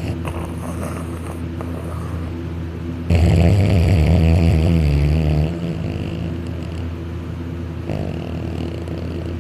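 A man snoring loudly while asleep on his back with his mouth open. One long, loud snore with a wavering pitch lasts about two and a half seconds, starting about three seconds in, over a steady low drone.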